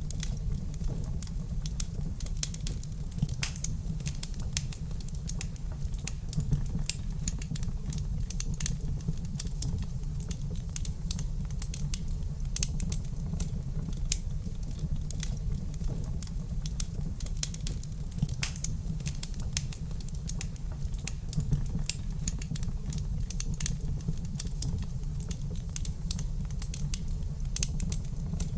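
Wood fire crackling in a fireplace: dense, irregular pops and snaps over a steady low rumble.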